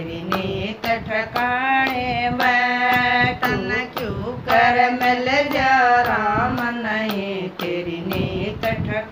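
Women singing a Haryanvi bhajan (Hindu devotional song) without instruments, keeping time with hand claps at about two to three claps a second.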